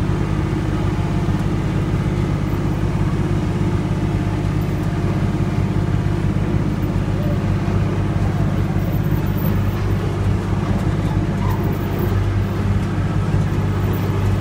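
Ride train running steadily, with a constant low engine drone over a rumble.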